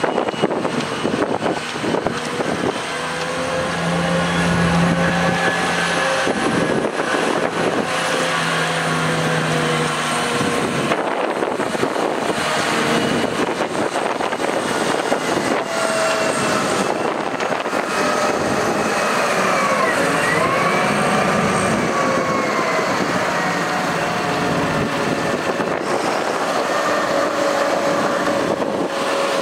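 Ponsse Bear forest harvester's diesel engine running under load, with a hydraulic whine that rises and falls in pitch as the crane and harvester head are moved. About two-thirds of the way through, the whine dips and climbs back.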